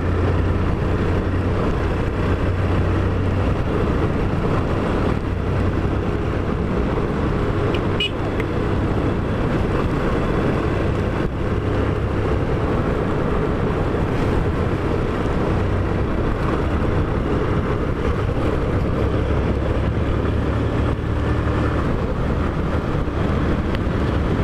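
Motorcycle engine running steadily as the bike is ridden along a dirt road, its low engine note under an even rush of riding noise.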